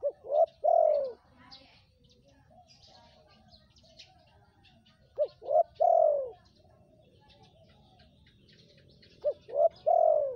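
Spotted dove cooing: three phrases about four seconds apart, each two short notes followed by a longer drawn-out coo. Faint chirping of small birds in the background.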